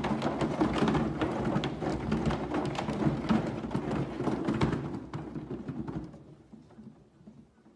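A cat exercise wheel rumbling as it turns under a Siamese cat's steps, with many small taps and thumps from the paws on the running track. The rumble fades over the last couple of seconds as the wheel slows.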